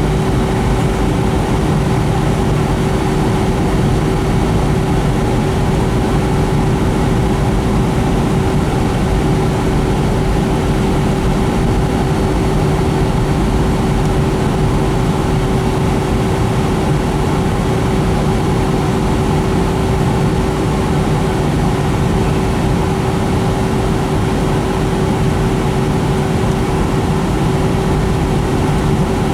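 Steady in-flight cabin drone of a Boeing 757-200 with Pratt & Whitney PW2000 engines: airflow and engine noise, with a constant hum running through it.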